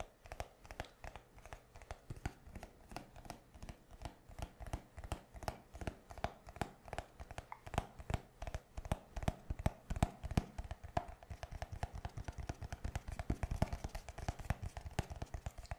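Fingertips tapping quickly on a small hard square block, several taps a second, getting louder about halfway through.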